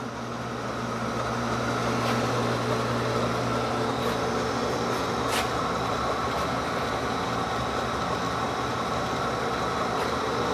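Sheldon No. 0 horizontal milling machine running in direct drive, a steady electric-motor and spindle-drive hum. It grows louder over the first couple of seconds as the variable speed is run up, then holds steady with a few faint ticks.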